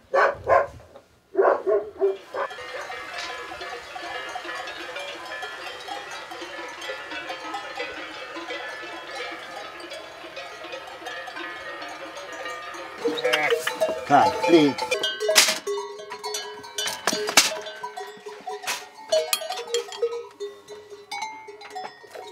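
A few sharp knocks, then the bells of a large grazing flock of sheep ringing together in a steady, dense jangle. From about 13 s in, the bells are closer and louder, with clanks and knocks among them.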